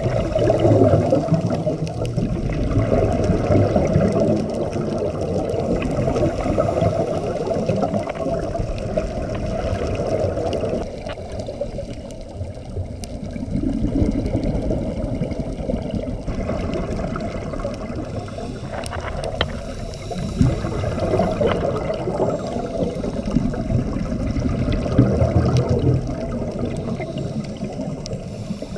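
Underwater sound of scuba divers' exhaled bubbles from their regulators, a dull, muffled bubbling that swells and fades in slow waves with each breath.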